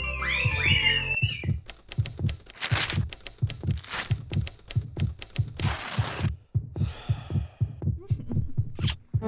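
A fast, regular low thumping, about three beats a second like a racing heartbeat, overlaid with sharp clicks and two short bursts of hiss. Rising chirps sound over it in the first second.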